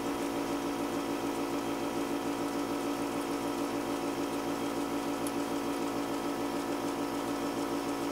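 Steady mechanical hum made of several fixed tones, the strongest fairly low, with a slight even wobble in level.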